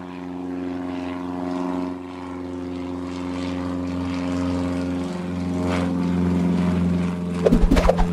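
Cartoon engine sound effect: a steady, even motor drone that swells slightly. A few quick swooping chirps come near the end.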